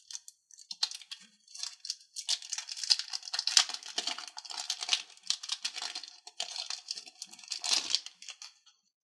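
Thin plastic packaging crinkling and crackling while a set of toy cards is unwrapped and handled. Sparse crackles at first, then a dense run of crackling from about two seconds in that stops shortly before the end.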